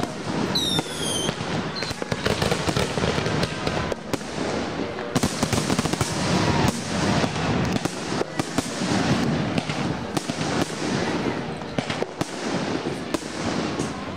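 Aerial fireworks shells bursting in quick succession: a continuous run of sharp bangs and crackle. A brief high whistle falls in pitch about half a second in.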